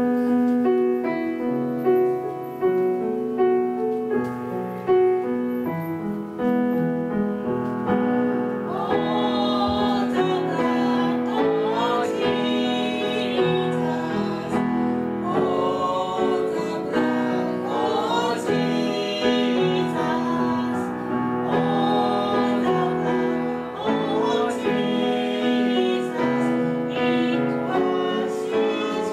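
Grand piano playing a worship-song introduction, then a woman's voice singing the melody with vibrato over the piano from about nine seconds in.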